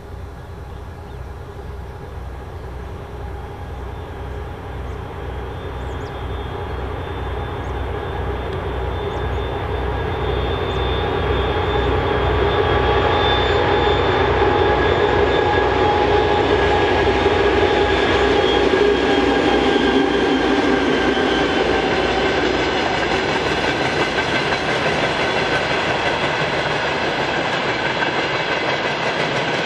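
Twin-section 2M62U diesel locomotive's two-stroke V12 diesel engines running as it hauls a tank-car train past, with a regular low throb that grows louder over the first dozen seconds. Then the loaded tank wagons roll by on the rails.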